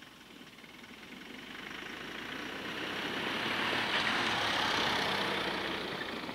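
A pickup truck driving past on a snow-covered track. Its engine and tyre noise grow louder, peak about two-thirds of the way through, then fade as it moves away.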